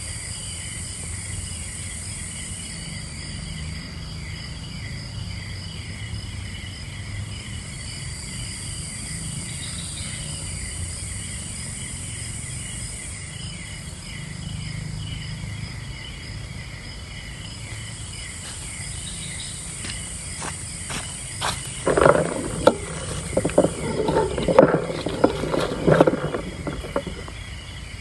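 Forest insect chorus at night: several steady high-pitched trills, one a quick pulsing chirp, over a low rumble. About three-quarters of the way through, a run of close, sharp knocks and taps comes in and is the loudest sound.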